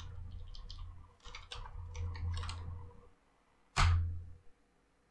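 Computer keyboard typing, quick runs of keystrokes, then a single louder key press about four seconds in as the command is entered.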